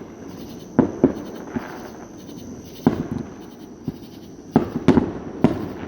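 Fireworks going off around a neighbourhood at night, about half a dozen bangs at uneven intervals, each with an echoing tail. Under them runs a steady high chorus of summer-night insects.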